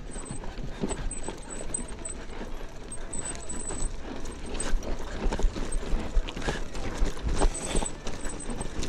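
Mountain bike clattering over a rough, stony jeep track: irregular knocks and rattles, with wind rumbling on the action camera's microphone.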